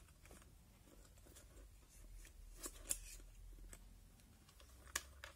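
Faint handling sounds of a plastic digital microscope being fitted and adjusted on its stand: light rubbing and small plastic clicks, a couple about three seconds in and a sharper click near the end.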